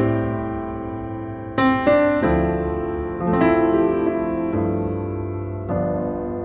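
Background piano music: slow chords struck every second or two, each left to fade.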